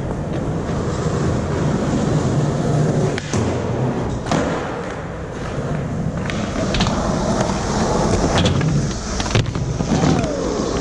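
Skateboard wheels rolling on concrete, a steady low rumble broken by several sharp clacks of the board hitting the ground.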